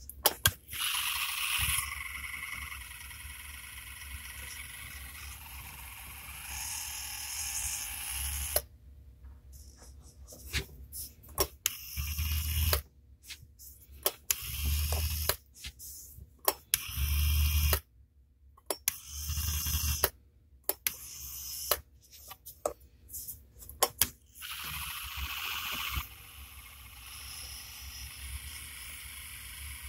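Healthco NCL-35SH/H dental engine's electric handpiece motor running with a high-pitched whine. About eight seconds in it starts and stops in short spurts with sharp clicks, then near the end settles back into a steady whine.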